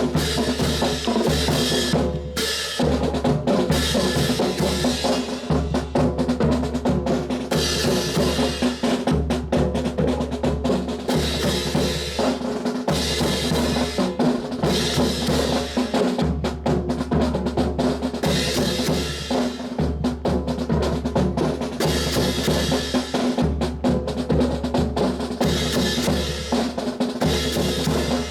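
Drum-led music with a steady beat, snare and bass drum over a stepping bass line, accompanying an honor guard's rifle drill.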